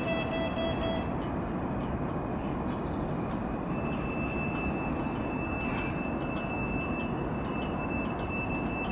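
Class 399 tram-train standing at the platform with its onboard equipment running: a steady hum. A pulsing beep stops about a second in, and a steady high whine starts about four seconds in.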